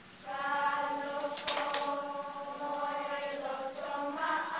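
A group of children singing a Tongan song together, holding long, steady notes. A short knock or clatter sounds about a second and a half in.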